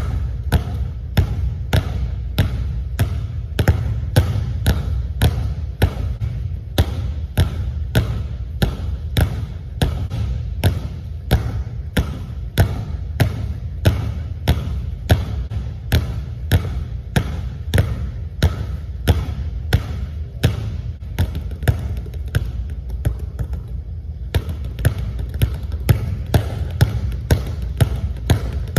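Two basketballs dribbled on a hardwood gym floor, a steady run of sharp bounces at about two to three a second.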